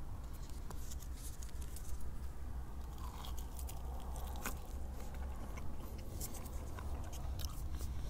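A man biting and chewing a large piece of meat grilled over an open fire, with many small scattered clicks over a steady low rumble.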